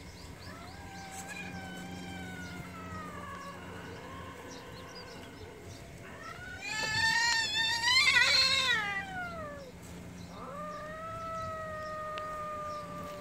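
Two cats yowling at each other in a standoff before a fight: long, drawn-out wailing calls. The loudest is a wavering yowl in the middle that rises and falls, and a long, steadier yowl follows near the end.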